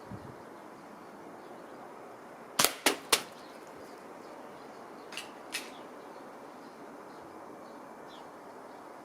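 Weihrauch HW30 spring-piston air rifle firing a pellet at a can: a quick cluster of three sharp cracks about two and a half seconds in, then two fainter clicks about two seconds later.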